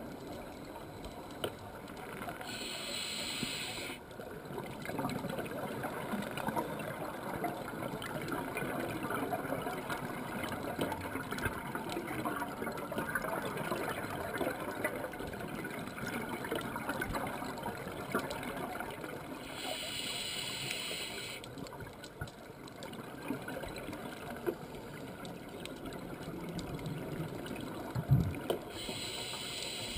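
Underwater sound of a scuba dive: a steady low rush of water, broken three times by a hissing, rattling burst of exhaled regulator bubbles, each lasting one to two seconds, about two seconds in, about twenty seconds in and near the end.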